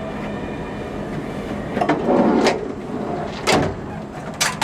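Drilling-rig derrick elevator running with a steady mechanical hum. There are several sharp knocks and a rattle about two seconds in, and further knocks near the end.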